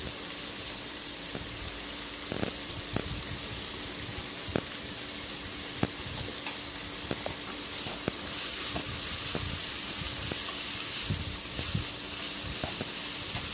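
Shredded cabbage, carrot and beans frying in oil in a pan: a steady sizzle with scattered small pops and crackles, getting a little louder about eight seconds in. A faint steady hum runs underneath.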